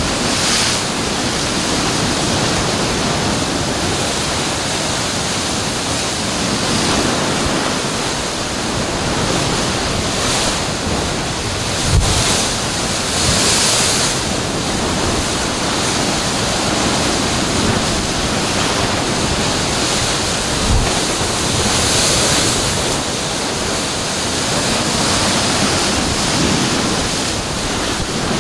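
Heavy ocean surf breaking into a narrow rocky inlet: a steady rush of churning white water that swells as each wave surges in, loudest a little before halfway. Two dull low thumps come about a third of the way in and again about three-quarters through.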